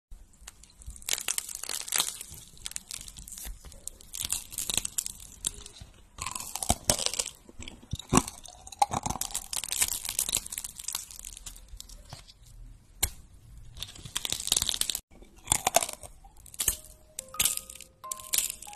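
Close-miked crunching and crackling of colourful candy sweets being squeezed, torn and bitten, in irregular bursts. A few short steady tones sound near the end.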